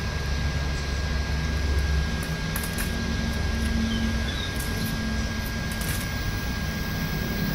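Steady low hum and hiss of room background noise like a fan or air conditioner, with a thin constant whine and a few faint clicks from small laptop parts being handled.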